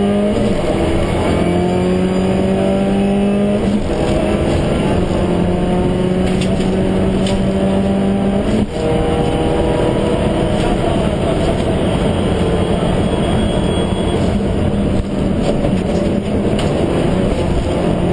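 Subaru Impreza STI rally car's turbocharged flat-four engine heard from inside the cabin under hard acceleration, its pitch rising through the gears with upshifts near the start, about four seconds in and about nine seconds in, then running at high revs over steady road noise.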